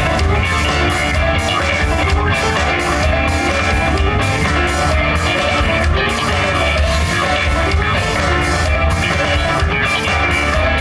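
Rock band playing live: drum kit and guitars over a steady beat.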